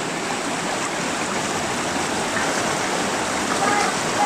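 Shallow rocky river running fast over rocks and small rapids: a steady rushing of water.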